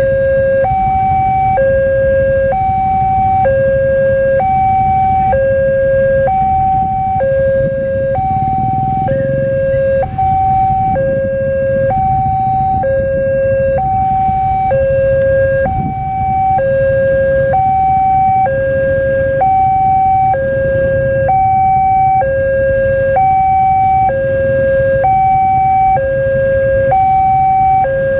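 Railway level-crossing warning alarm sounding a steady two-tone high-low signal, the tones alternating about every three-quarters of a second, over a low rumble of idling engines.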